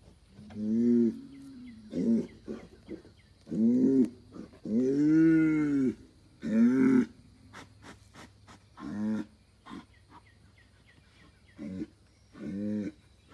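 Young Angus bull bellowing in about eight separate calls, each rising and falling in pitch, the longest about a second and a half near the middle. These are the calls of an angry, agitated bull.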